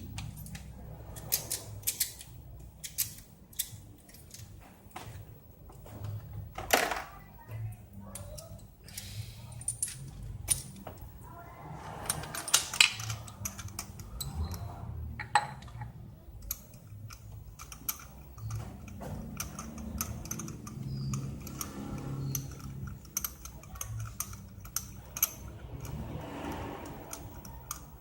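Irregular metallic clicks and clinks of hand tools being handled on the engine, over a low background hum.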